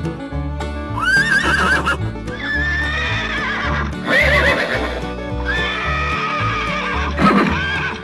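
Horses neighing: several quavering whinnies, one after another, over background music with a steady pulsing bass.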